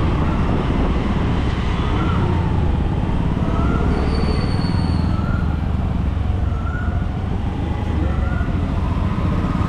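Steady road and traffic noise heard from a moving bicycle, dominated by a heavy low rumble of wind and tyres on the action camera's microphone. A short, thin high tone sounds about four seconds in.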